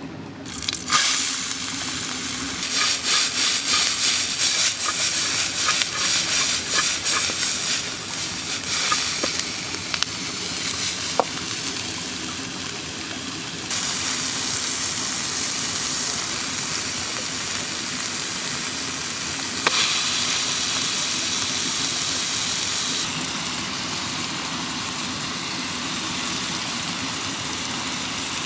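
Diced onion sizzling in hot oil in a steel pan, with a fast rhythmic stirring for several seconds early on. Later minced meat goes into the pan and the sizzling carries on, with a sudden knock and a louder burst about two-thirds of the way through.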